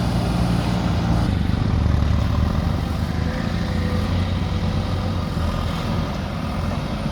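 Diesel engine of a JCB backhoe loader running steadily, a little louder in the first couple of seconds before easing slightly.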